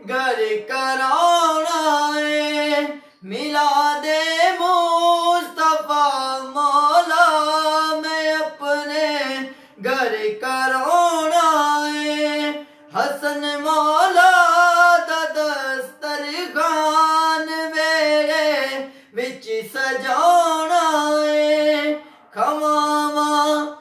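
A man singing a naat solo, a single high voice drawing out long held notes with wavering ornaments, pausing briefly for breath every few seconds.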